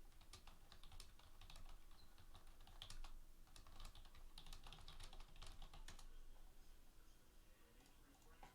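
Faint typing on a computer keyboard: a run of quick, irregular key clicks that thins out after about six seconds.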